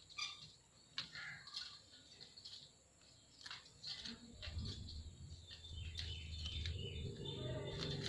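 Indian ringneck parakeets giving short, scattered high chirps. A low background rumble builds from about halfway through.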